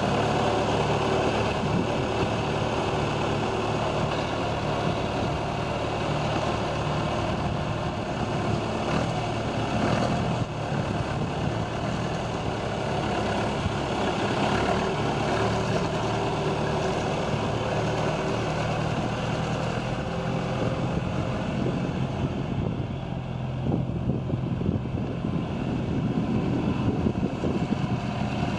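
John Deere 310A loader backhoe's engine running steadily.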